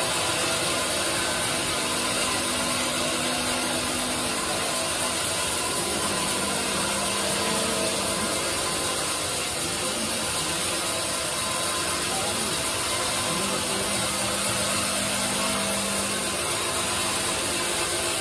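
Sawmill band saw running without cutting while its log carriage carries a teak log up to the blade: a steady mechanical noise with a low hum that comes and goes.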